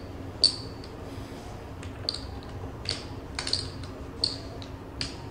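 Casino chips clinking as a blackjack dealer stacks and pays out bets: several sharp, separate clicks, each with a short high ring.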